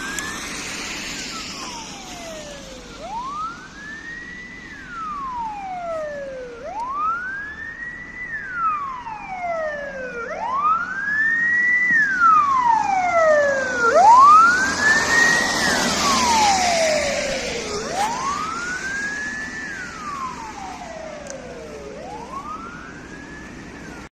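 Wail siren of a Mercedes Sprinter Classic ambulance: a slow rising and falling tone, each sweep climbing, holding briefly at the top, then sliding down, repeating about every three and a half seconds. It is loudest around the middle, where a rushing hiss comes in alongside it.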